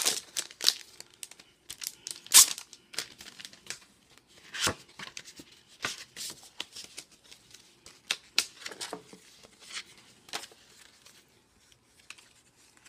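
Clear plastic packaging crinkling and tearing as a package of metal cutting dies is handled and opened, in irregular sharp crackles and snaps; the loudest snap comes about two and a half seconds in, and the crackling dies away near the end.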